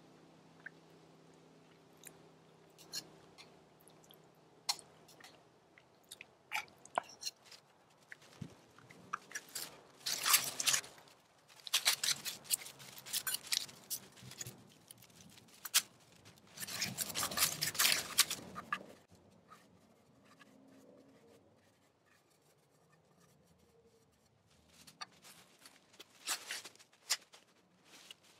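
Dry leaf litter crunching and rustling under boots in several irregular bursts, the loudest in the middle, with scattered crackles near the end.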